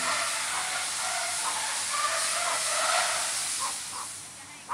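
Steady hiss of wind noise on the microphone, with a few faint short tones in the middle; it eases off near the end.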